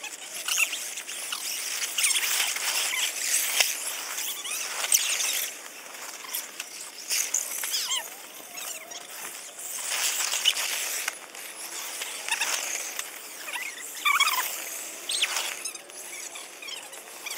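Footsteps crunching and rustling through dry fallen leaves, in irregular stretches, with a few short squeaky crackles near the end.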